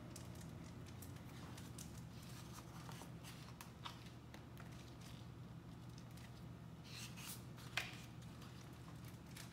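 Pages of a hardcover picture book being opened and turned: faint paper rustles and soft clicks, with a sharper tick nearly eight seconds in, over a low steady room hum.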